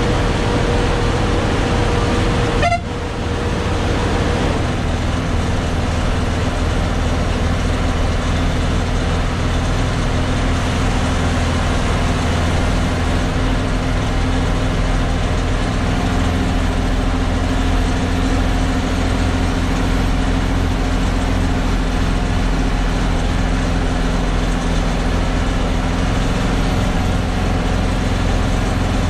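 Heavy lorry's diesel engine running steadily under load on an uphill climb, heard from inside the cab as a constant low drone. There is a brief break in the sound about three seconds in.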